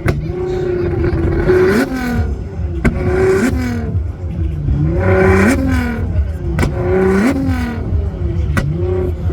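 Car engine revved repeatedly over heavy bass. Each rev is held, then climbs and drops back, about every one and a half to two seconds, with a couple of sharp pops.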